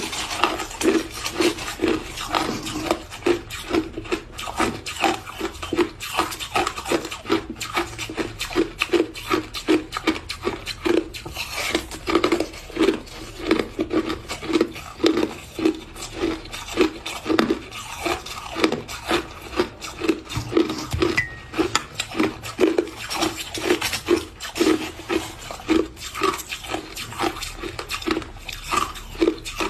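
Crushed ice being chewed close to the microphone, a steady run of crunches, a few a second.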